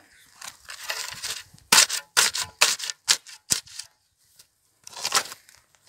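Steel spade being driven into grassy soil and levered: a run of short scrapes and crunches of the blade through earth and turf. After a brief pause about four seconds in, there is one more scrape.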